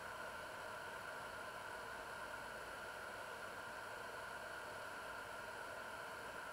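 Steady, unchanging hiss with no distinct events: background noise or room tone.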